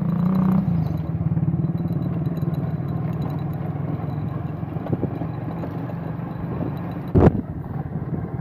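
Motor vehicle engine running steadily while driving along a rough gravel road, a passing motorcycle rickshaw louder in the first half-second. A single loud thump about seven seconds in.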